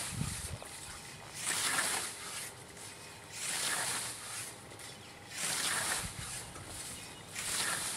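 Scythe with a 75 cm Model 2010 blade cutting through standing grass: a swishing stroke about every two seconds, four strokes in all.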